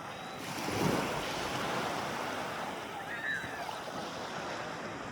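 Sea waves washing in over shallow water: a surge of surf noise about half a second in, then a steady wash.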